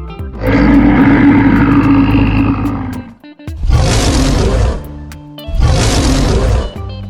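A large wild animal calling: one long, rough call of about three seconds, then three short, harsh roars about two seconds apart, over background music.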